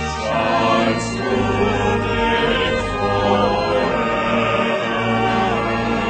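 Small mixed-voice vocal ensemble singing a choral piece in held notes, the chords changing every second or so.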